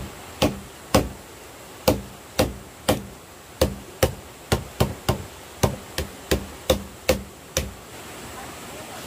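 A knife chopping on a chopping board: about seventeen heavy chops at roughly two a second, unevenly spaced, stopping about seven and a half seconds in.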